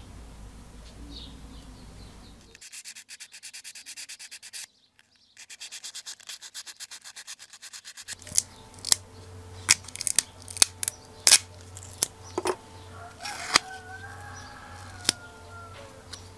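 Hand-sanding a small copper lure blank with an abrasive: quick, even rubbing strokes, about six a second, with a brief pause midway. Then a string of sharp clicks and taps.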